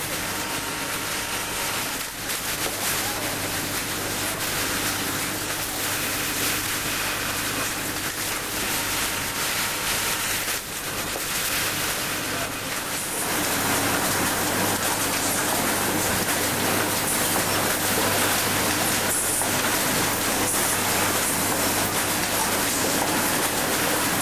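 Steady noise of industrial sewing machines running on a factory floor, over a low steady hum. About thirteen seconds in it becomes louder and hissier and stays so.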